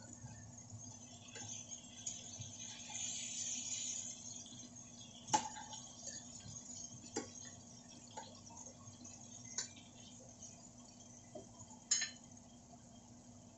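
Metal tongs clinking and knocking against a ceramic-coated frying pan as fried pork and tofu pieces are turned, a scattering of sharp clinks with the loudest about five and twelve seconds in. A soft sizzle of frying oil rises a couple of seconds in and fades by about four seconds.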